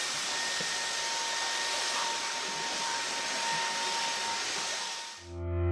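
EVEREZE V30 cordless stick vacuum with a brushless motor, running with a steady rush of air and a thin, high, steady whine. It fades out about five seconds in, and music starts right after.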